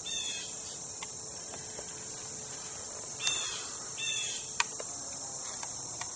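Steady high-pitched chorus of crickets, with a few short chirps near the start and around the middle, and a few light clicks.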